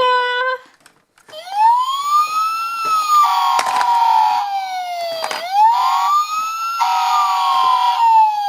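Electronic siren sound effect from a battery-powered toy fire truck, a wailing tone that rises and then slowly falls, twice, with other electronic tones layered over it.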